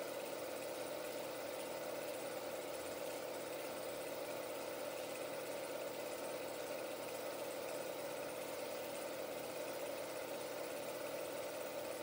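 16 mm film projector running, giving a steady, unchanging mechanical hum.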